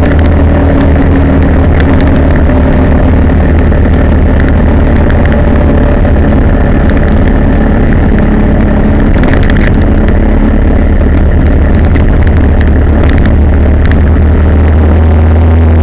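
Vehicle engine running on the move, a loud steady rumble with its pitch drifting slightly up and down.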